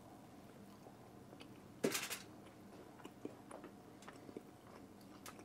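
A person biting into a sauce-glazed smoked pork spare rib and chewing the meat, with small wet clicks of chewing. One louder bite comes a little under two seconds in.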